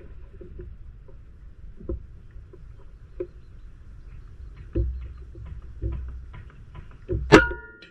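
A QS Air Arms Mk3 PCP air rifle firing a single 21.4-grain slug near the end: one sharp, loud crack, followed by a short ringing tone. A few faint knocks come before it.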